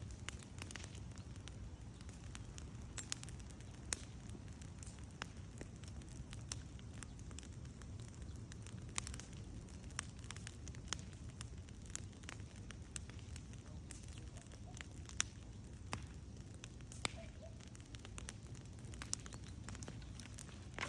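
Fire burning with a steady low rumble and irregular sharp crackles and pops, a few of them louder than the rest.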